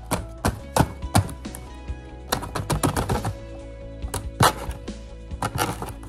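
A plastic robot vacuum dustbin knocked and tapped against a cardboard box to shake out cardboard debris: a string of sharp knocks, some in quick clusters, over background music.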